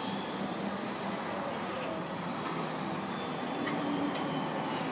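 Steady background hiss with no distinct sounds in it.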